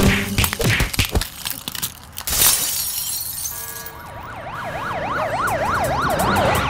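Cartoon scuffle sound effects: a few sharp knocks, then glass shattering about two seconds in. From about four seconds, a wailing alarm siren sweeps rapidly up and down, growing louder.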